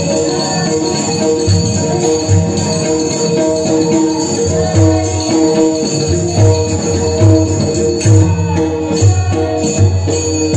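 Devotional bhajan music: small brass hand cymbals (taal) jingling in a steady rhythm over sustained harmonium notes and a regular low drum beat.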